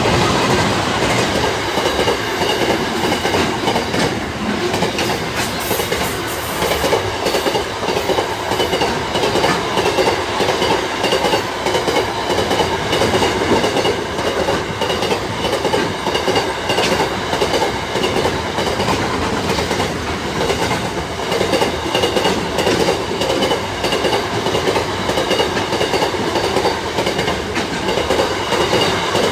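Container freight train hauled by EL class diesel locomotives passing close by at speed. A long string of loaded container wagons goes past, the wheels clattering steadily and loudly on the rails.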